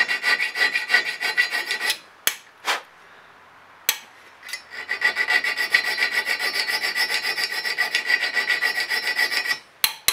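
Hand file working the steel end of a knife tang held in a vise in quick short strokes, cleaning up the end of a slot. The filing stops for about two and a half seconds, with a few sharp clicks, then resumes steadily until just before the end.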